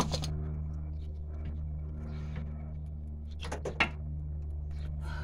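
Steady low machine hum under a few sharp metallic clicks and clinks, loudest in a quick cluster about three and a half seconds in, as a brake caliper guide pin is worked loose by hand with an Allen key.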